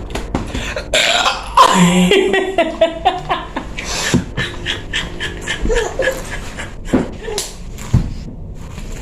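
A woman's long belch, loudest about a second and a half in and wavering in pitch as it runs on, brought up by a litre of fizzy Pepsi.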